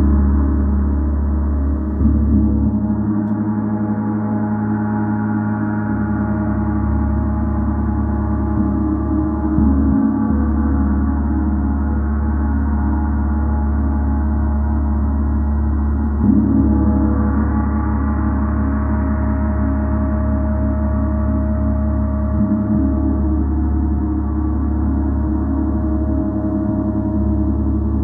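A gong played with soft, repeated mallet strokes, its many overlapping tones sustaining in a continuous low ringing wash. Fresh strokes swell the sound every few seconds, the strongest about two seconds in and about halfway through.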